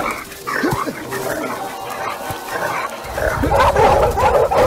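A dog growling and barking as it attacks a man, getting louder and more frantic from about three and a half seconds in.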